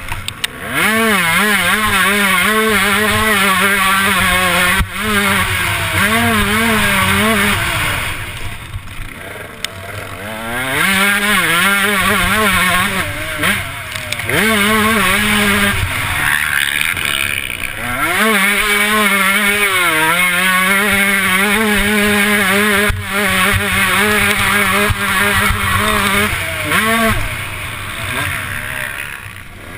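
Motocross bike engine heard from the rider's helmet camera, running hard under throttle with its pitch climbing and falling. It drops back at three points where the throttle eases off, then picks up again with quick rises in pitch.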